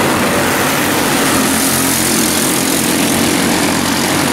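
Several quarter midget race cars' small single-cylinder four-stroke engines running at speed on the track, a steady drone with no break.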